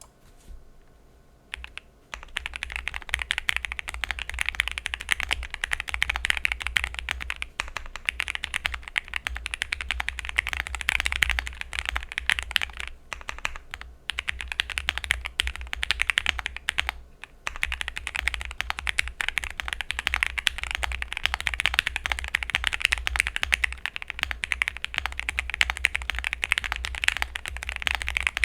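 Typing on an Owlab Jelly Epoch mechanical keyboard with lubed and filmed Gateron KS3 Yellow linear switches, 62 g springs, a polycarbonate plate and GMK keycaps. The keystrokes come as a fast, continuous stream starting about two seconds in, with a couple of brief pauses.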